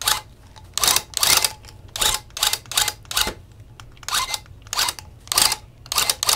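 Loop pile tufting gun firing in about a dozen short bursts, punching yarn into the backing to fill in small spots.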